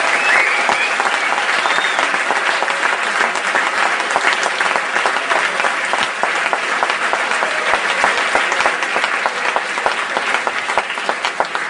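Concert audience applauding after a piece, dense clapping that gradually thins out and quietens toward the end.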